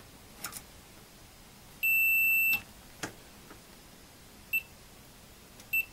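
Multimeter continuity beeper: one steady high beep lasting just under a second about two seconds in, then two short chirps later on, with a few faint clicks between them. The beep signals continuity, showing that a power cord prong is connected through to the supply's input terminal.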